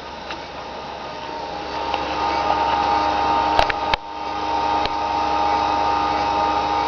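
Old desktop PC running while it boots slowly: a steady whir of fans and hard drives with a high, steady whine that grows louder about two seconds in, and a couple of sharp clicks near the middle.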